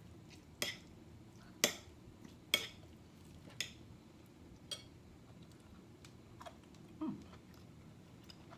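A metal fork clinking against a ceramic bowl as food is stirred in it, about one sharp clink a second for the first few seconds, then a few fainter ones.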